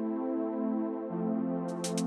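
Intro background music: sustained synthesizer-keyboard chords that change about a second in, with drum beats starting near the end.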